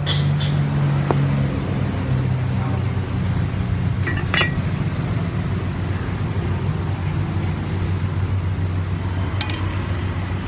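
Steady low background rumble, with a few sharp clinks of crockery and a cleaver: one at the very start, one about four seconds in, and a fainter one near the end.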